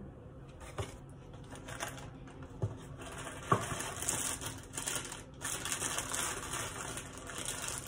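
Plastic inner bag of a cracker box crinkling as it is opened and crackers are taken out: a crackly rustling with a few sharp clicks, denser and louder in the second half.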